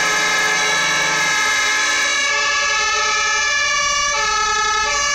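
Fire engine sirens sounding together, a loud, steady mix of horn tones that switch pitch back and forth, alternating about every 0.7 s toward the end.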